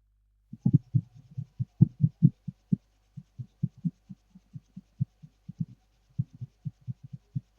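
A long irregular series of short, dull, low thumps, several a second and of uneven strength, like handling knocks on a workbench.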